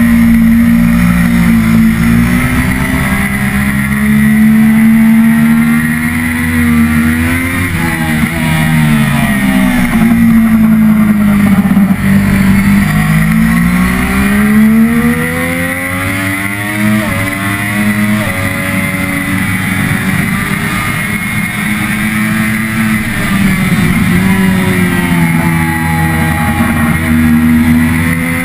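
Triumph Daytona 675R's three-cylinder engine under race load, heard from a camera mounted on the bike. The revs climb and drop several times as it shifts through the gears and slows for corners, with gear-change steps in the pitch.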